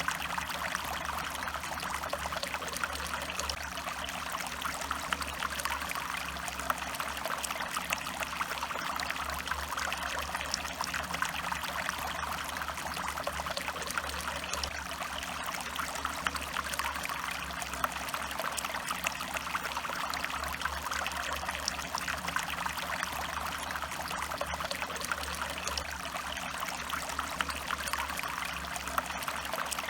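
Stream water running and trickling steadily, an even rush of flowing water with many small splashes through it and a steady low rumble underneath.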